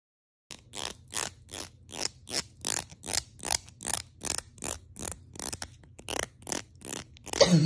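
Plastic comb's teeth being strummed, a short rasping stroke repeated about three times a second, with a louder burst near the end.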